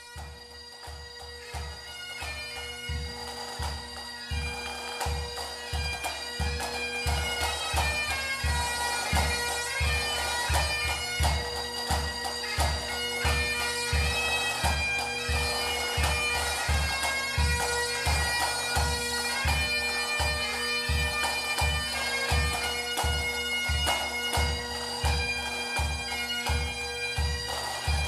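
Pipe band music: bagpipes playing a tune over their steady drones, with drum beats about twice a second. It starts quietly and builds over the first few seconds.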